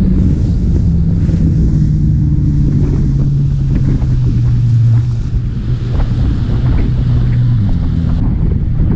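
Bass boat outboard motor running at speed, its note sinking slowly over the first few seconds and then holding steady. Wind buffets the microphone, and the hull knocks and slaps on the chop.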